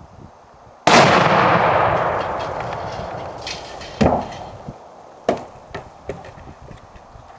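An exploding target detonating when hit by a rifle shot: one sudden loud blast about a second in that rumbles away over a few seconds. Two sharper bangs follow, then a few smaller cracks.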